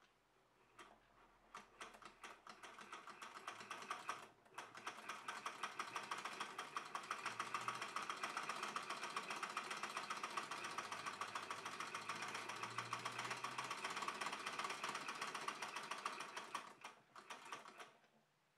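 Hand-cranked Essex miniature toy sewing machine stitching a single-thread chain stitch through fabric: a rapid, even clatter of needle-bar strokes. It starts haltingly, pauses briefly about four seconds in, runs fast and steady, then slows and stops near the end.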